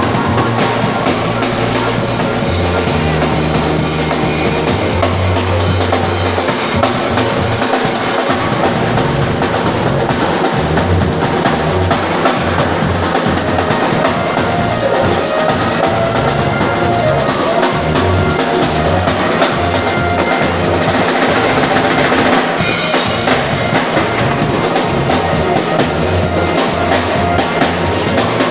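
Drum kit playing a steady groove, with kick, snare and cymbals, over a bass line of held low notes.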